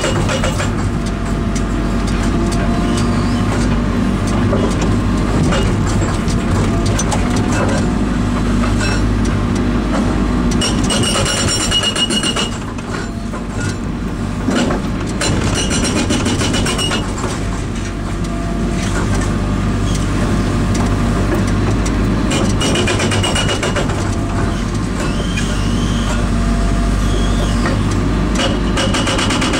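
INDECO hydraulic breaker hammering rapidly, powered by the carrier machine's hydraulic pump, with the engine running steadily underneath at about half throttle to keep the oil flow down. The hammering eases for a few seconds around the middle, then picks up again.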